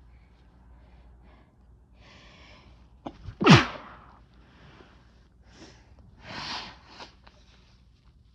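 A person sneezing: a soft breath in and a couple of short catches of breath, then one loud sneeze about three and a half seconds in whose pitch falls sharply, followed by a few quieter breaths.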